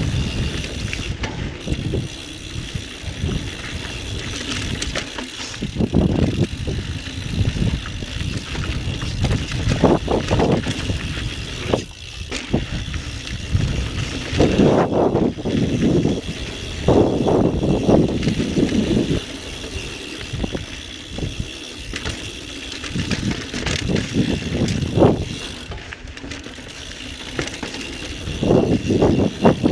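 Intense Recluse mountain bike ridden fast down dirt singletrack: continuous tyre and trail rumble with rattling jolts over rough ground, louder in clusters about ten seconds in, through the middle, and again near the end.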